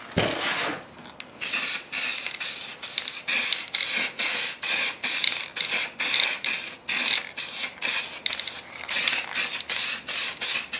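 Aerosol can of spray paint sprayed in many short hissing bursts, about two a second, starting about a second and a half in.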